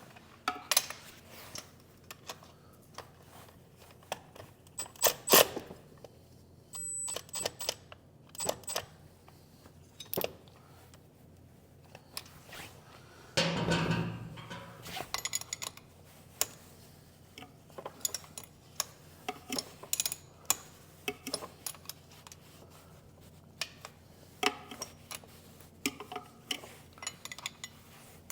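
Wrenches and metal parts clicking and clinking irregularly as a motorcycle's stock shift linkage is unbolted and worked loose, with a louder, longer noise about halfway through.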